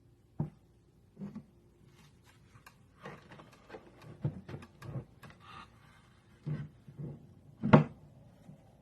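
Handling noises from a package being unboxed: scattered knocks, taps and rustles, with one sharper, louder knock near the end.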